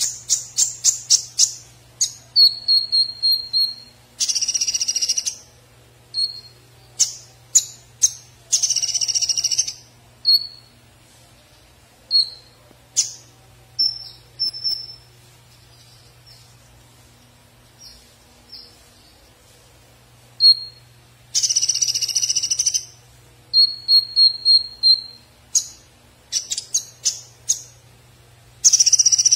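Caged male Van Hasselt's sunbird (konin) singing: quick high chirps and short whistled notes mixed with harsh, buzzy rattling phrases about a second and a half long, which come four times. There is a quieter stretch with only a few notes around the middle.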